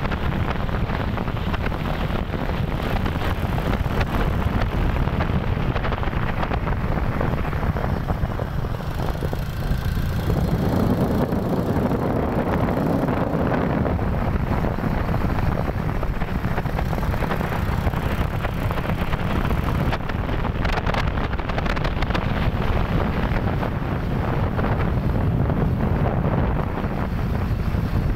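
Steady wind rush buffeting the microphone of a camera on a moving motorcycle, with the motorcycle's running and road noise underneath.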